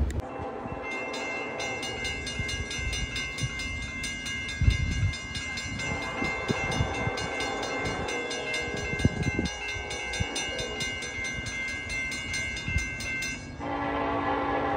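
Grade-crossing warning bell ringing over and over as the crossing gates come down, then a locomotive horn sounds near the end.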